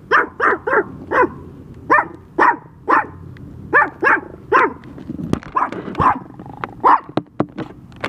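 A small Chihuahua-type dog barking repeatedly, short sharp barks in quick bunches of two or three, about a dozen in all. Sharp clicks or knocks come in among the barks in the second half.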